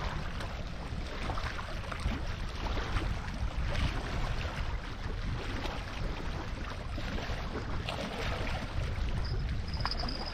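Wind rumbling on the microphone over the wash of small waves on a rocky lakeshore. A faint high steady whistle comes in near the end.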